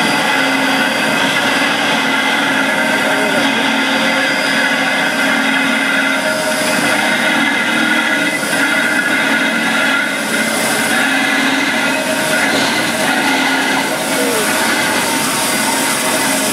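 A 2-8-0 steam locomotive turning on a turntable: a steady mechanical whir with hiss from the standing engine, holding one level throughout.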